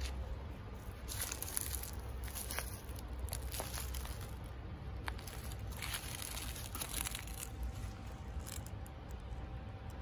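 Dry fallen leaves crunching and rustling in irregular bursts, over a low rumble.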